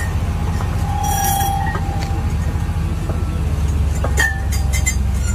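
Steady low engine hum from the crane lifting a long insulator string, with scattered sharp clinks as the glass insulator discs knock against one another.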